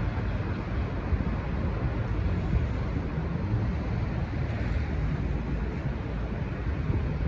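Steady low rumble of a departing N class diesel-electric locomotive and its train, with no horn sounding.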